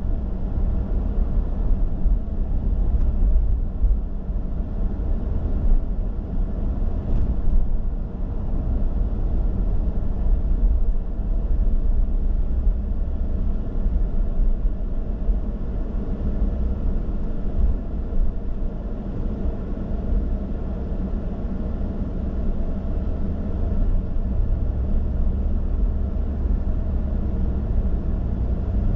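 Car driving: a steady low rumble of engine and tyre noise on the road, unbroken throughout.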